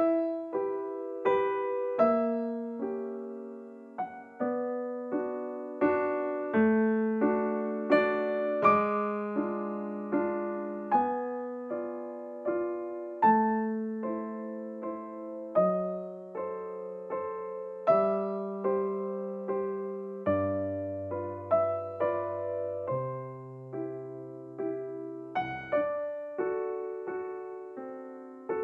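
Background music: a gentle piano melody, notes struck and left to die away, with lower bass notes coming in near the end.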